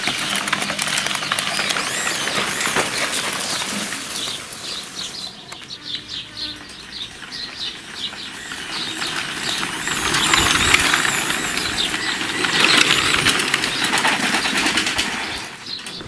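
Washing-machine motor driving a homemade electric bicycle, running with a rough, clicking whir as the bike is ridden. About four seconds in it fades and birds chirp. A broad whirring rush comes up again about ten seconds in.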